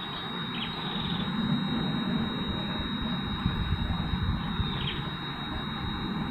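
Wind rumbling irregularly on the microphone over steady outdoor noise, with a faint steady high-pitched tone.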